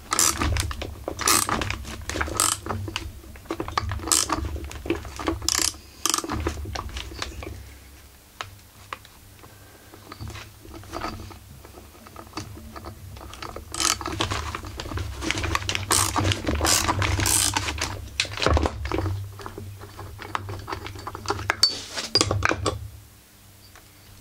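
Bursts of metal-on-metal clicking and clattering from hand tools working on the stuck flywheel of a dismantled Husqvarna 44 chainsaw, with a quieter stretch in the middle.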